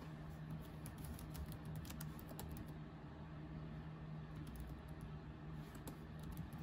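Typing on a computer keyboard: faint, irregular key clicks as a file name is entered, over a steady low hum.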